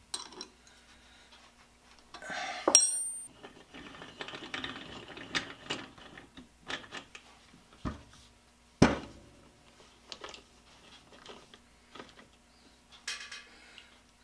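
Metal clinks and knocks of hand tools and nuts against a three-jaw lathe chuck as its mounting nuts are fitted. There is a sharp ringing clink about three seconds in and a heavier knock near nine seconds, the loudest sound.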